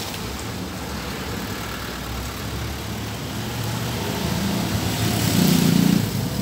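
A motor engine running steadily with a low hum, growing louder to a peak about five seconds in and then easing off.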